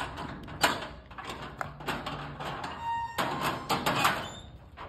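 Metal street gate rattling and clanking in irregular knocks as it is worked from inside, with a short squeak about three seconds in.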